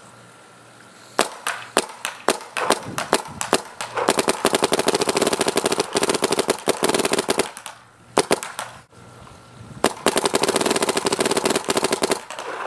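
Vicious Geo 2 paintball marker with its stock Shaft4 barrel firing. It fires a few single shots a fraction of a second apart, then two long, fast strings of shots with a short break between them.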